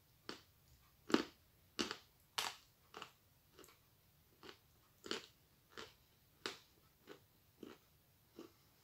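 Close-up chewing of a full mouthful of chalk: a run of separate sharp crunches, about two a second, loudest in the first few seconds.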